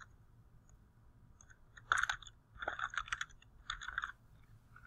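Typing on a computer keyboard: three short bursts of keystrokes, starting about two seconds in.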